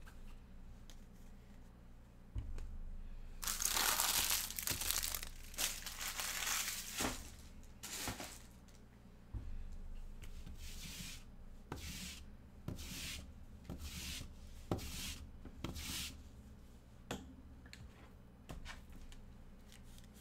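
Empty foil trading-card pack wrappers being crumpled and gathered up by hand. There is a loud stretch of crinkling about four to seven seconds in, then a string of shorter crinkles.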